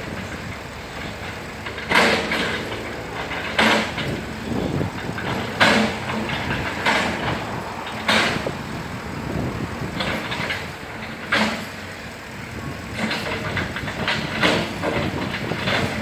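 Cat 313FL hydraulic excavator working, its diesel engine running steadily with short loud surges every one to two seconds.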